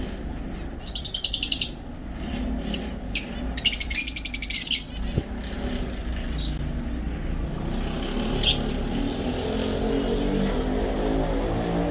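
Caged pet birds chirping: two rapid chattering runs of high chirps in the first five seconds, then scattered single chirps, over a low steady rumble.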